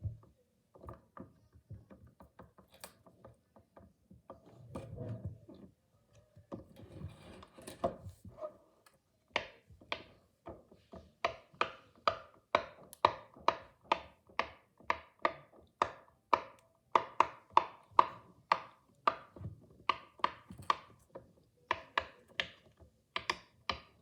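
Silicone Pop-It fidget toy having its bubbles pressed one after another. From about nine seconds in, there is a steady run of sharp pops, about two to three a second. Before that there are softer handling rustles and scattered clicks.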